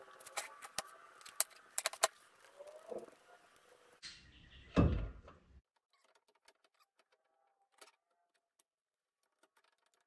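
Light clicks and knocks of a greased tapered roller bearing being fitted into a trailer hub on its spindle by hand, with a dull thump about five seconds in; only faint clicks after it.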